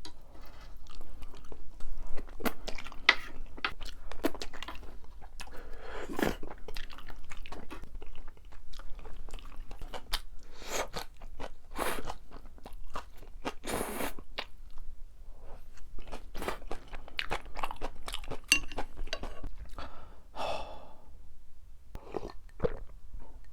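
Close-miked eating: chewing and crunching of Chapagetti noodles and spicy green-onion kimchi, with irregular crunches and mouth sounds.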